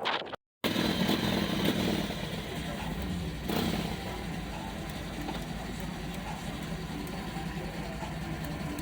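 An engine running steadily, a low hum with hiss over it, briefly a little louder about three and a half seconds in. A short drop to silence comes about half a second in.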